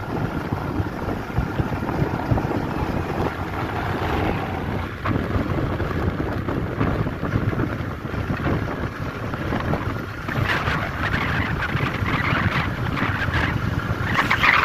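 Wind buffeting the microphone over the steady rumble of a vehicle moving along a road, heard from on board. A louder, hissier stretch comes about ten seconds in, and again near the end.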